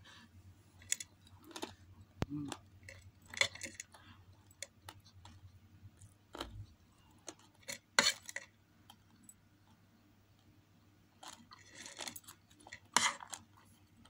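Close-up eating sounds of a person chewing chicken adobo and rice: wet chewing and lip smacks broken by scattered short sharp clicks, the loudest about 8 and 13 seconds in.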